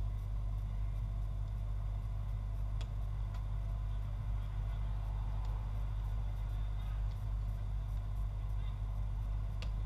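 Steady low rumble of outdoor background noise, with faint distant voices and a few short sharp clicks.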